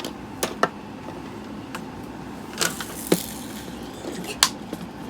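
A handful of short, sharp clicks and knocks, scattered irregularly over a steady low background hum.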